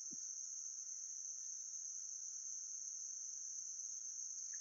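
Steady, unbroken high-pitched drone of an insect chorus, crickets, with a soft low thump right at the start.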